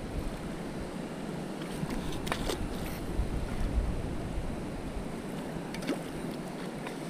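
Shallow surf washing steadily around the legs, with wind on the microphone. A few short splashes, a couple about two seconds in and one near the end, as a metal detector's search coil is swept through the water.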